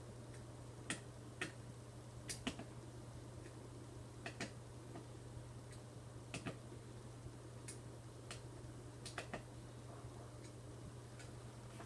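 Small sharp clicks, often in close pairs, about a dozen at uneven intervals, from headphone parts being handled and fitted during a headband replacement, over a steady low hum.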